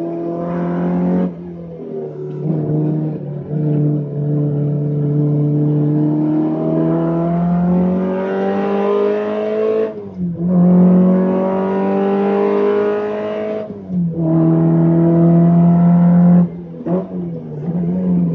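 Alfa Romeo Alfetta GTV's four-cylinder engine racing at full throttle, its pitch climbing steadily as it revs up through a gear, then dropping sharply at each gear change or lift, three or four times.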